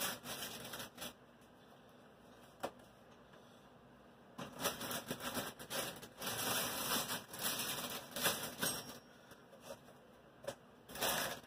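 Bags and food packaging rustling and crinkling as groceries are handled, in irregular bursts with a few sharp clicks, mostly from about four to eight seconds in.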